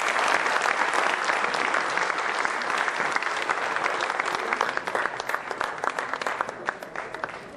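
Audience applauding, dense clapping that thins out into scattered claps near the end.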